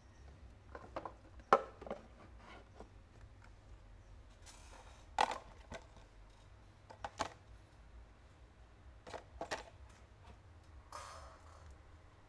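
Small metal tools and parts clinking and tapping on a hard work surface: a scattering of sharp clicks, the loudest about a second and a half in and about five seconds in, over a faint steady low hum.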